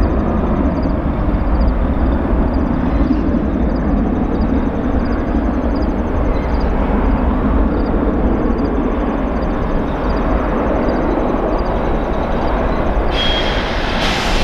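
Jet airliner engines running with a steady deep rumble and roar; the noise turns brighter and hissier near the end.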